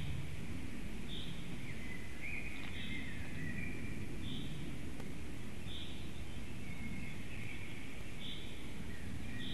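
Small forest birds calling. One repeats a short high note about once every second and a half, while another sings brief phrases about two seconds in and again near the end, over a steady low outdoor rumble.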